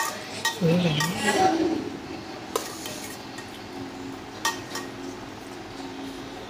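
Metal spoon clinking and scraping against a stainless steel basin of rice, a handful of separate sharp clinks spaced a second or more apart. A short murmured voice sound comes about a second in.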